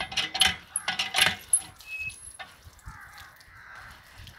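Cast-iron hand pump worked by its handle: a few sharp metallic clanks and squeaks in the first second and a half. After that, softer water splashing from the spout onto concrete.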